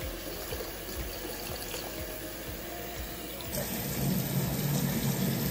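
Bathroom sink tap running, water pouring into a shallow pool and splashing. About three and a half seconds in, the rush of water turns abruptly louder and fuller.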